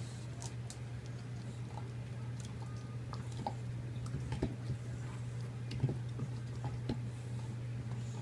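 English bulldog gnawing on a bone: irregular clicks and crunches of teeth on the bone, with a sharper click about six seconds in.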